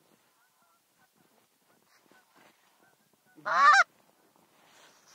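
One loud, close Canada goose honk about three and a half seconds in, rising in pitch, with faint short goose calls in the background.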